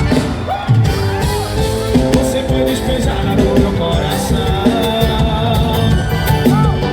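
Live forró band music played loudly, with singing over a steady drum beat.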